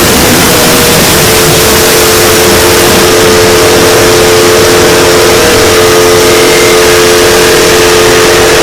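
Scary sound effect: a very loud, distorted wash of noise with a steady droning tone underneath that settles in about a second in.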